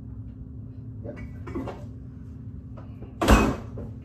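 A few faint knocks and rustles of items being taken from a refrigerator, then the refrigerator door shutting with a short, loud thud about three seconds in.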